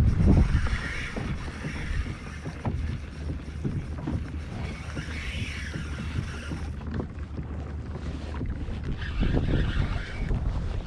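Wind rumbling on the microphone, with water lapping and splashing against a kayak's hull.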